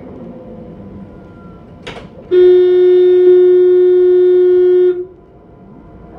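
Alstom light-rail tram's horn sounded once as one long, steady, loud blast of about two and a half seconds, heard from inside the driver's cab, as a warning to a car crossing the track just ahead. A short click comes just before it, over the low rumble of the running tram.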